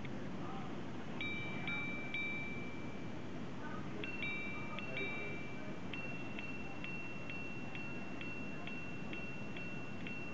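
Girard-Perregaux 1966 minute repeater striking the time on its two gongs. It gives three lower single strikes for the hours, then two high-low double strikes for the quarters, then a run of about ten single high strikes, about two a second, for the minutes. Each strike rings on clearly over a faint steady hiss.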